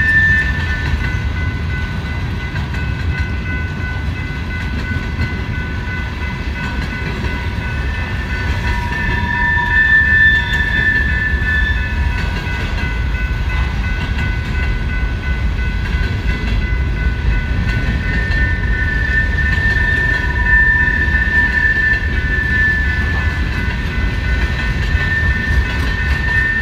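Freight cars of a BNSF mixed-freight train rolling past, a steady low rumble of wheels on rail. Over it run steady high-pitched tones that swell and fade, loudest about ten seconds in and again from about eighteen seconds on.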